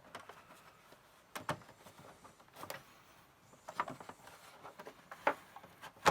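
A few separate clicks and knocks of plastic printer parts being handled and fitted together during reassembly, the sharpest knock at the very end.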